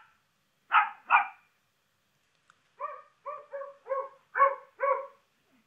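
Recorded barks of domestic dogs, each dog's track separated out by an AI model from a recording of two dogs barking at the same time. First one dog gives three harsh, noisy barks. Then, about three seconds in, a second dog with a clearer, more tonal bark barks about six times in quick succession.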